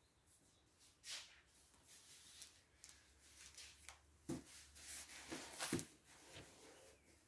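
Near silence with faint scattered rustles and a few light taps, the clearest a little over four seconds in and again near six seconds.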